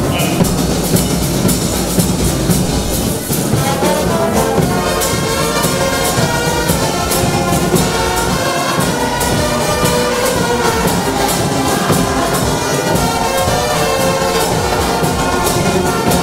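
Live brass fanfare band playing: trumpets, trombones, baritone horns and sousaphones over snare and bass drums. The horn melody comes in strongly about three and a half seconds in.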